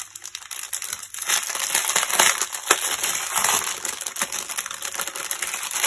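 Plastic packaging crinkling and crackling as a clear plastic kit bag with foil drill packets inside is handled and worked open.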